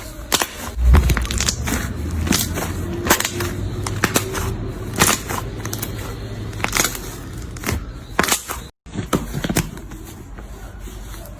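Slime being squeezed and pressed by hand, giving off irregular crackling pops and clicks. There is a brief break in the sound partway through.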